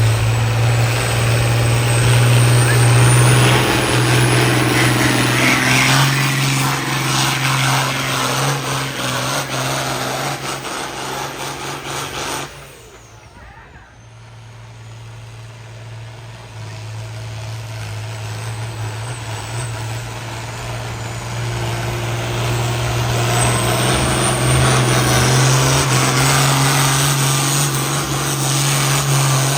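Pulling vehicle's engine running flat out under load on the sled, with a high turbo-like whistle rising over it. It cuts off suddenly about twelve seconds in; after a short lull an engine builds up again and runs loud to the end.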